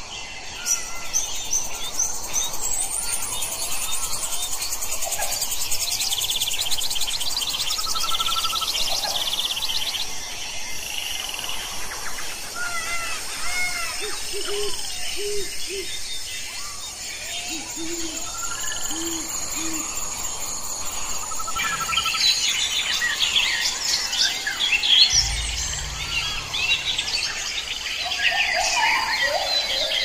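Mixed calls of several small birds: high chirps, trills and short whistles throughout, with two short runs of three low cooing notes about halfway through and busier chirping in the last several seconds.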